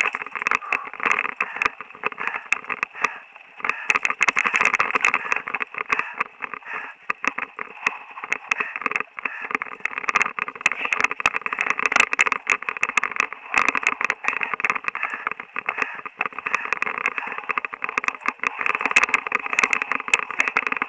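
Mountain bike riding fast down a dirt singletrack trail: a steady rushing noise with constant small clicks and rattles as the bike and the camera on it are jolted over the trail.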